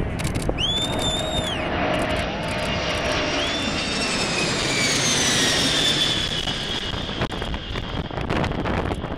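The four Pratt & Whitney JT9D turbofans of the Boeing 747 Shuttle Carrier Aircraft pass low overhead with a loud, steady jet roar. The roar builds to a peak about five to six seconds in. As the aircraft goes past, a high engine whine slides down in pitch, and the roar then begins to ease.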